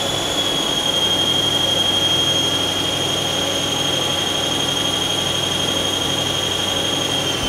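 Mazak CNC lathe running a roughing cut under a Mazatrol program, its spindle giving one steady high whine over an even rush of machining noise. The cut is running at 110% feed and spindle speed overrides.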